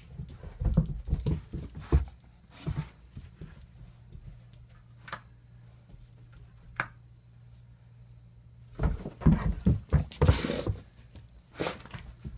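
A dog moving about on a carpeted floor: quick runs of thuds and scuffles, once near the start and again near the end, with a quieter stretch between. A steady low hum runs underneath.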